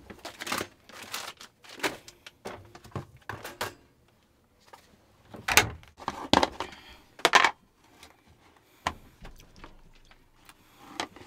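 Scattered clicks, knocks and thunks of things being handled and small doors or lids moved while leftover pizza is got out inside a truck camper, with a few louder knocks a little after the middle.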